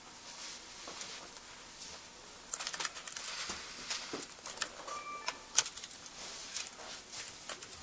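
Quick small clicks and taps of hard plastic objects, a few at first and then in dense runs from about two and a half seconds in, with one short high tone a little after five seconds.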